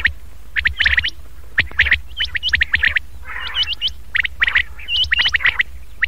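Common quail calling: rapid clusters of short, sharp clipped notes, some ending in a small upward hook, with a raspy burst a little past halfway. A steady low hum runs underneath.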